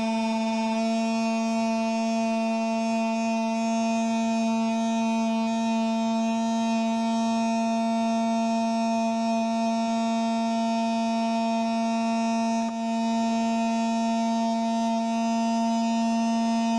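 Electric palm sander clamped upside down and running with a steady, even hum while small wood pieces are sanded on its pad.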